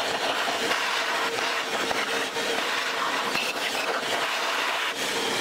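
A Dremel rotary tool with a grinding stone cutting into the aluminium cylinder head, opening up clearance for a head-stud socket, while a shop vacuum runs alongside and draws away the chips. The noise is steady with a constant hum, and its grit changes as the stone bites.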